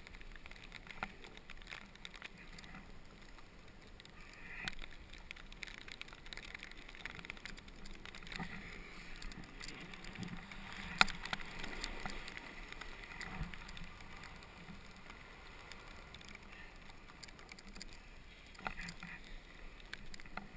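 Snowboard sliding and carving over snow, a faint steady scraping, heard from a helmet camera, with a sharp click about halfway through.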